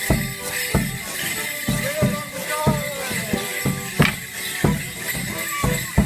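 Live Border Morris dance music: a band playing a tune in held notes over a steady, heavy drum beat, about two beats a second.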